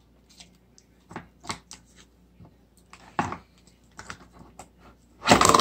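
Slime and its container being handled on a tabletop: scattered small clicks and sticky taps, then a louder burst of noise just before the end.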